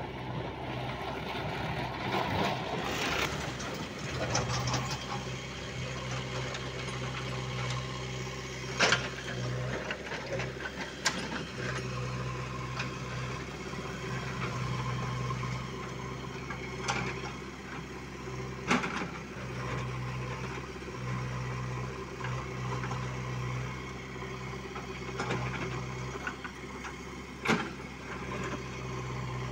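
Mahindra tractor's diesel engine running steadily as it pulls a loaded trolley over rough ground. A few sharp knocks sound at intervals through it.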